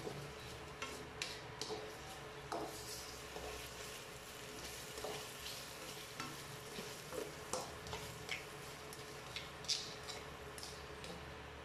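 Sliced onions and garlic sautéing in a nonstick wok with a faint steady sizzle, while a plastic slotted spatula stirs them, scraping and tapping irregularly against the pan.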